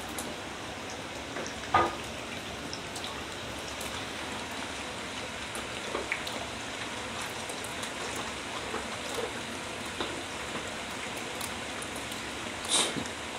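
Steady patter of falling water with a few louder drips or taps, the loudest about two seconds in and another near the end.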